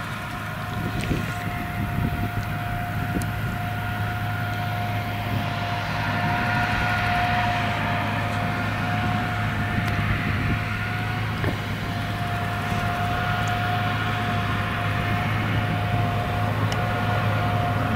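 Claas Jaguar 970 self-propelled forage harvester chopping whole-crop triticale and blowing it into a trailer. A steady low engine drone runs under a steady high whine, growing slightly louder after about five seconds as the machine comes closer.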